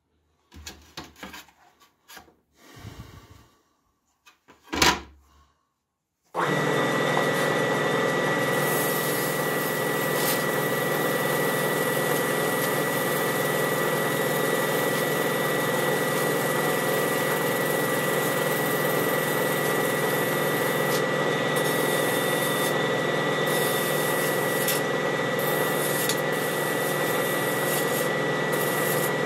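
A few light handling knocks and one sharp knock about five seconds in. Then a bench grinder's wire brush wheel starts up abruptly and runs steadily with a constant high whine, scrubbing rust off a machete blade held against it.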